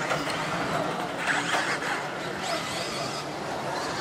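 Electric RC stadium trucks racing on a dirt track: the high whine of their electric motors, rising about two and a half seconds in, over a steady wash of noise.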